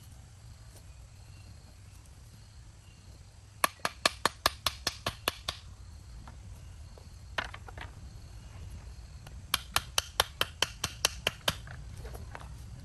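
Two quick runs of sharp knocks, about five a second and each lasting about two seconds, with a single knock between them, over a low steady hum.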